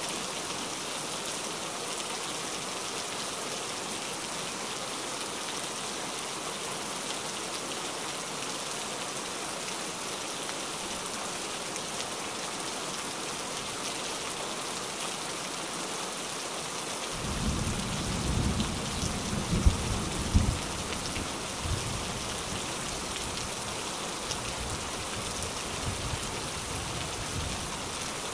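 Heavy rain falling in a steady hiss. About two-thirds of the way through, a low rumble of thunder rolls in, with two sharper peaks close together, then trails off into fainter rumbles.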